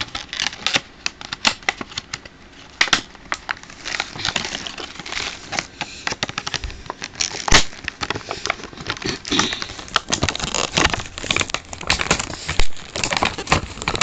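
Plastic packaging crinkling and crackling as it is handled, with irregular sharp clicks and taps, the loudest about halfway through.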